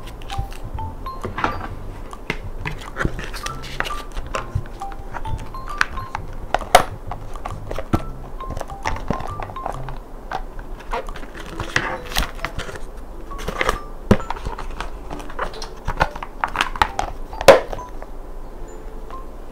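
Soft background music with light, short notes, over irregular clicks and knocks from a clear plastic sticker storage case and its card packaging being handled on a desk.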